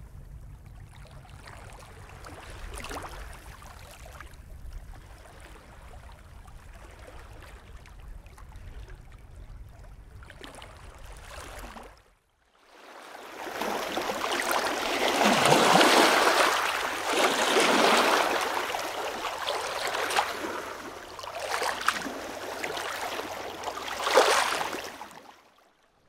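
A low rumble with faint trickling water, then, after a brief drop-out about halfway, ocean surf: waves washing in and out in several loud swells before fading out at the end.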